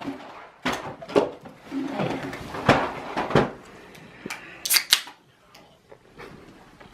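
A string of separate short knocks and clicks, as of objects being handled, with a brief low voice sound about two seconds in.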